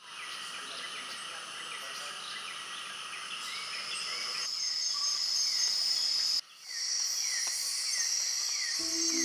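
Tropical rainforest ambience: a steady, high-pitched drone of insects such as cicadas, with a short falling call repeated about twice a second. The sound drops out briefly about six seconds in, and soft music with sustained tones starts near the end.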